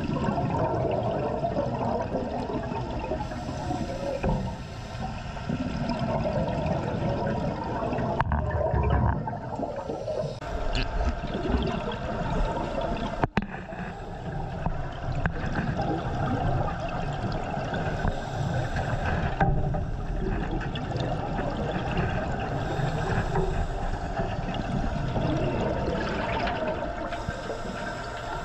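Water sloshing and gurgling in a continuous, uneven rush, with one brief sharp click about halfway through.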